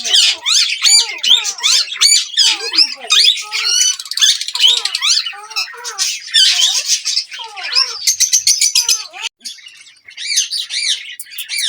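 Several ringneck parakeets squawking and chattering at once: loud, rapid, overlapping harsh calls and chirps, with a brief lull near the end.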